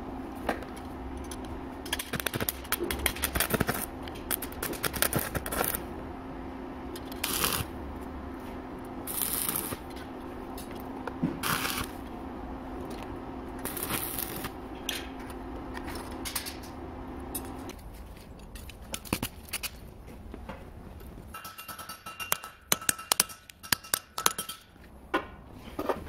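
Arc welder with a steady electrical hum, crackling and sputtering in short bursts each time the electrode strikes an arc on a steel padlock. The hum stops about two-thirds of the way through, and near the end come irregular sharp clicks and metal knocks.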